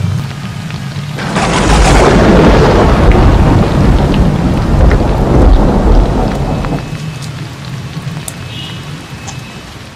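Thunderstorm: steady heavy rain, with a sharp thunderclap about a second in that rolls on loudly for several seconds before dying away. The storm sound fades out near the end.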